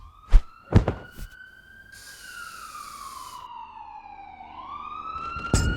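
Emergency vehicle siren wailing, its pitch rising, falling slowly, then rising again. There are a few sharp knocks in the first second, and a brief hiss partway through.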